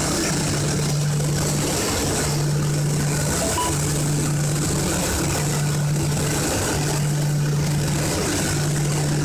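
Automatic spray painting line for long wood boards running: a steady hiss of spraying and machine noise, with a low hum that breaks off briefly about every second and a half.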